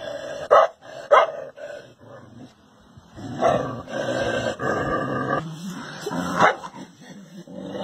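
Dogs barking at their own reflections in a mirror as if at another dog: two sharp barks in the first second and a half, a longer drawn-out stretch about halfway, and another sharp bark near the end.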